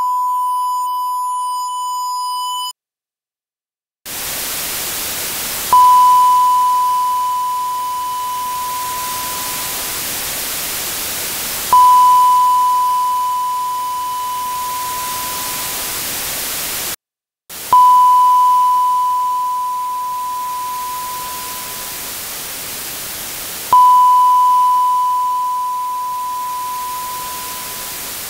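A sine-wave ping recorded at −80 dBFS, rendered to 16-bit and boosted 80 dB. It first sounds as a steady high beep with a buzzy edge of added overtones, the truncation distortion of the undithered render. After a second of silence comes the steady hiss of dither noise, weighted toward the top end by noise shaping, and the clean beep strikes four times about six seconds apart, each time fading away into the hiss.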